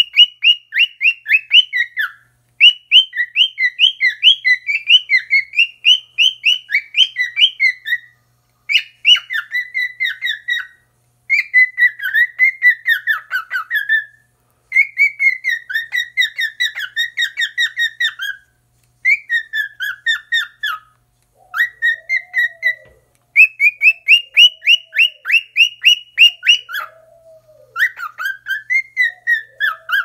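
Male cockatiel singing to its reflection in a mirror: long runs of rapid, high chirping whistles in phrases a few seconds long, broken by short pauses.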